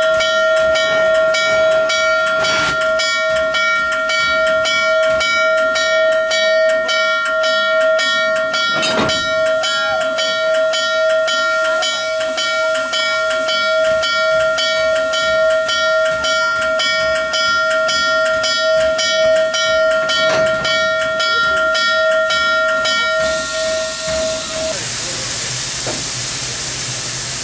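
Norfolk and Western 611's multi-chime steam whistle blowing one long steady blast over a rhythmic beat of about three a second. The whistle cuts off about 25 seconds in, leaving a steady hiss of escaping steam.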